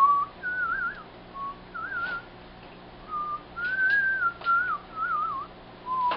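A person whistling a meandering tune in a string of short phrases. Several notes are held with a wavering pitch, with brief pauses between the phrases.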